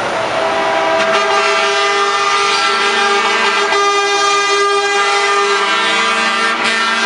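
Truck air horn blowing one long, steady chord of several tones; a second set of tones joins about a second in and the horn holds to the end.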